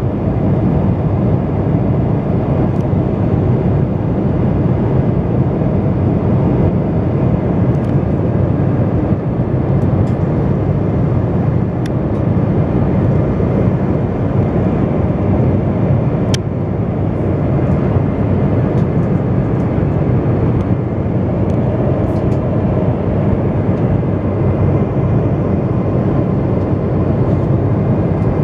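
Jet airliner cabin in cruise flight: a steady rumble of engine and airflow noise, with a few faint ticks.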